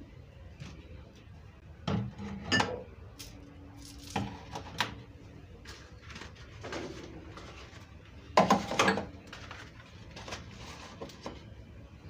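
Glass sauce bottles being set down and shifted on a wooden cabinet shelf: a series of separate knocks and clinks, the loudest cluster about eight and a half seconds in.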